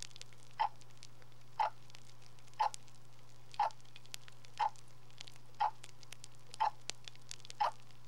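Regular ticking, one short sharp tick about every second and evenly spaced, with a few fainter clicks between, over a steady low hum.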